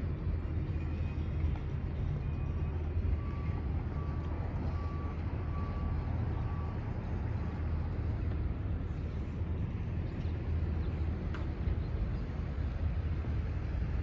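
Steady low outdoor rumble. A faint high beeping tone comes and goes several times in the first half, and there is a single sharp click about eleven seconds in.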